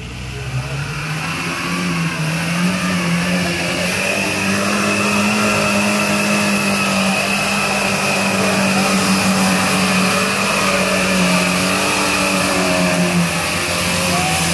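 Lada Niva's engine revving hard under load as the 4x4 drives through deep mud. It climbs over the first couple of seconds, then holds steadily at high revs.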